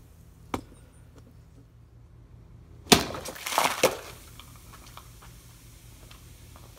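A small explosion: a loud, sudden bang about three seconds in, then about a second of crackling and spattering debris, after a single sharp click near the start. It fits a plastic bottle bursting.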